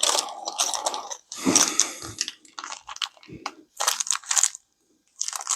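Crinkling plastic packaging being handled and torn open in irregular bursts as the hardware for a sliding door lock is unpacked.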